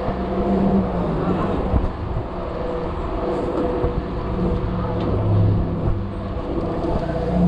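City street traffic: nearby car engines running with a steady low hum over continuous road noise.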